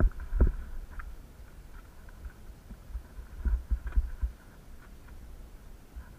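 Low rumble and dull thumps from a camera being carried along a rough dirt trail. There is a knock shortly after the start and a cluster of knocks around the middle.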